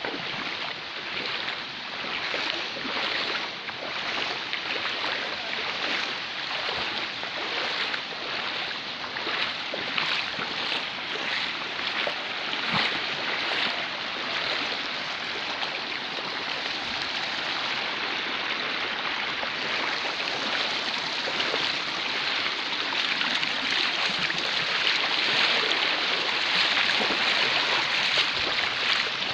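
Río Duda in flood: swollen, turbulent river water rushing steadily, growing somewhat louder over the last several seconds.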